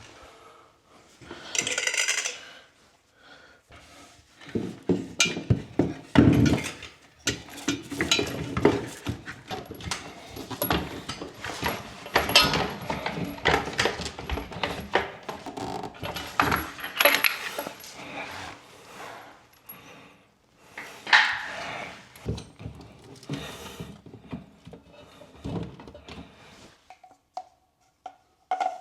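Metal tools and plumbing fittings clinking, knocking and scraping at an irregular pace while water supply lines are fitted under a bathroom sink.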